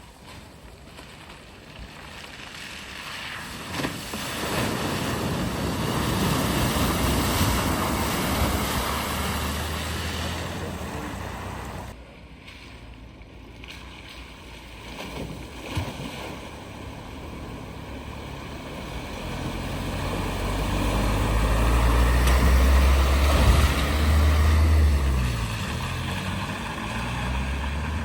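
Vehicles driving one after another through deep floodwater: engines running under the rush and spray of water. There are two passes, the second louder, with a low engine drone.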